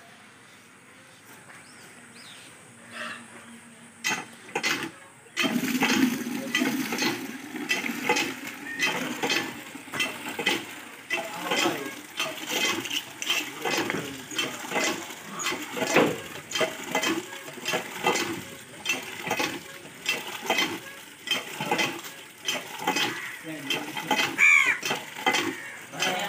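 Butcher's knife cutting and scraping hide and flesh from a cow's head, wet slicing and scraping sounds. Quiet at first, then from about five seconds in a louder, steady run of scrapes and clicks with voices in the background.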